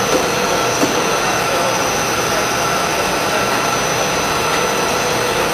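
PE plastic sheeting (blown-film) machine running: a steady mechanical hum and hiss with a few constant whining tones.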